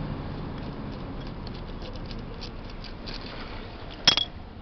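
Faint ticks and scrapes of a screwdriver turning a brass jet out of a single-cylinder motorcycle carburetor. About four seconds in, the freed jet drops and lands with one sharp metallic clink and a brief ring.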